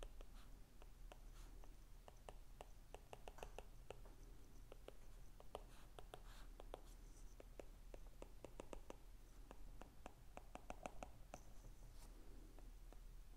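Stylus tapping and scratching on a tablet's glass screen during handwriting: faint, quick clicks in irregular clusters over a low steady hum.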